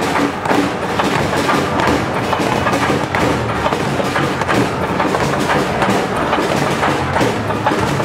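Music with a heavy, steady beat, the soundtrack the protesters are dancing to.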